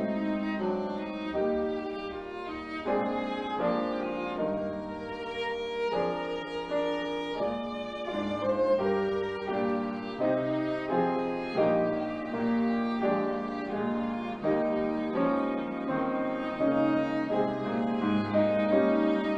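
Solo violin playing a worship-song melody, with piano accompaniment underneath.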